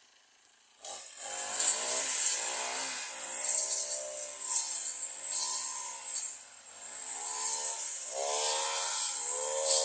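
Repeated rasping strokes like sawing, with a pitch that rises and falls on each stroke, starting suddenly about a second in.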